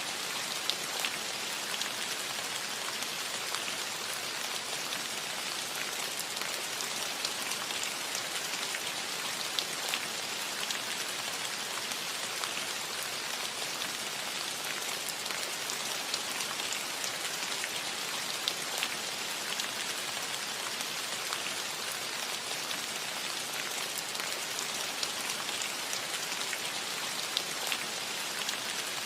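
Steady light rain pattering on a metal roof, a constant hiss with many small individual drop ticks.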